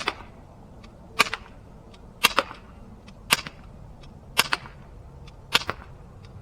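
Umarex Glock 19 CO2 BB pistol fired six times, about one shot a second, each sharp crack followed a split second later by a second, fainter click; the CO2 cartridge is running low and the shots are getting weak.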